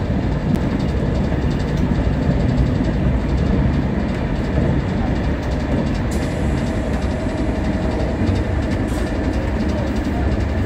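Passenger train in motion, heard from inside the carriage: a steady low rumble of the wheels running on the track.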